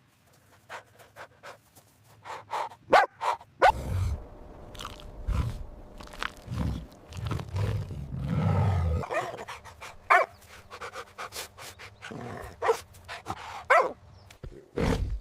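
A dog barking over and over in short barks, with a louder low rumbling stretch in the middle.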